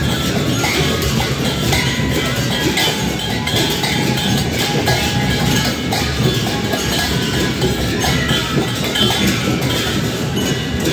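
Procession percussion, drums with clashing metal cymbals, playing loud and continuously with many irregular strokes.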